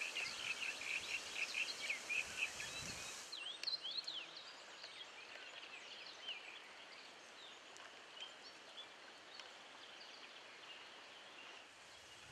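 Outdoor birdsong: a fast run of repeated high chirps for the first three seconds, then fainter, scattered chirps and whistles over a steady soft hiss of open-air background.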